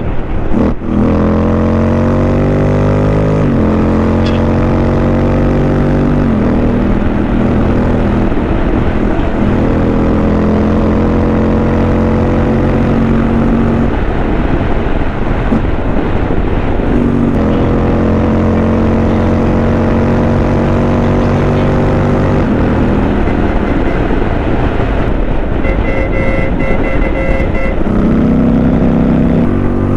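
Motorcycle engine running under way, its pitch climbing as it accelerates and dropping at each gear change. Near the end there is a short run of high beeps.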